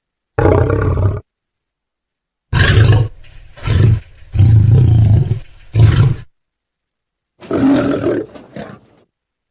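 Lion roar sound effects used as a griffon's voice: six short, loud roars in a row, each cut off sharply into dead silence. The longest is just over a second, near the middle.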